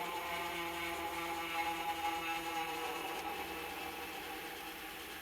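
Small electric motor of a Gemmy animated floating ghost Halloween decoration whirring steadily as it runs.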